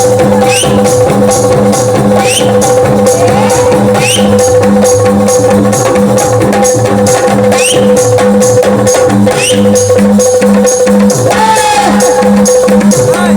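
Instrumental music with a fast, even percussion beat over a steadily held note, without singing.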